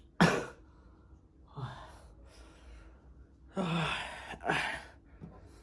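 A man's sharp gasps and breathy exhalations reacting to a nasal swab just taken for a self-test: a sudden loud one near the start, then three more over the next few seconds.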